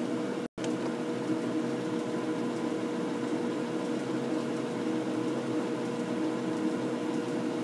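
American Pacemaker engine lathe running steadily with its lead screw engaged and turning: a steady mechanical hum with a faint constant whine. The sound cuts out for a split second about half a second in.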